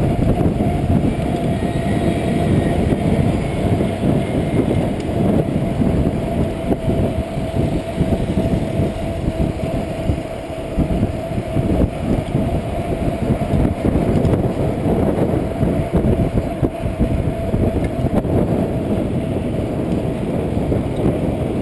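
Wind rumbling on the microphone of a bicycle-mounted camera while riding, mixed with tyre and road noise, steady throughout with a thin constant hum above it.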